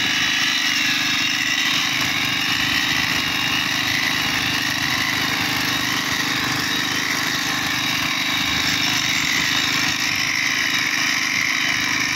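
Motorised portable rail grinder running steadily, its abrasive wheel grinding the head of a steel rail. It gives a low motor hum under a wavering high whine.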